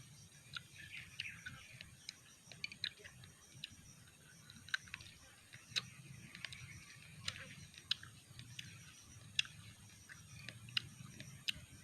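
Faint mouth sounds of eating santol fruit: irregular wet clicks and smacks while chewing and sucking the sour pulp off the seeds.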